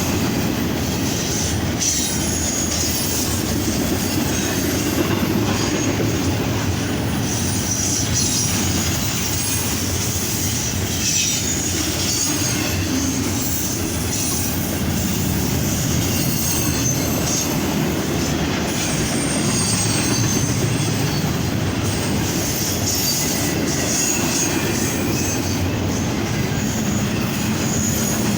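Norfolk Southern freight train cars rolling past: a steady rumble of wheels on rail, with high-pitched wheel squeal and scattered clicks of wheels over rail joints.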